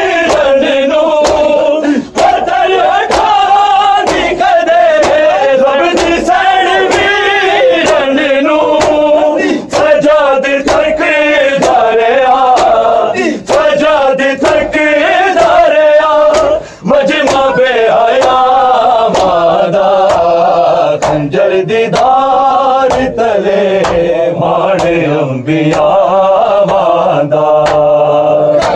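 Male voices chanting a noha, a Shia mourning lament, over a steady beat of strikes: the mourners' rhythmic chest-beating (matam).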